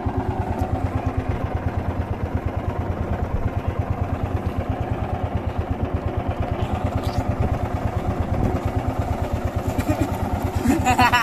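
Small boat's motor running steadily with a rapid, even low putter.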